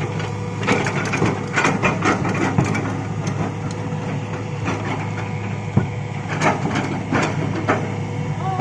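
Hitachi excavator's diesel engine running steadily while rock is handled, with irregular sharp knocks and clatter of stone every half second to second or so.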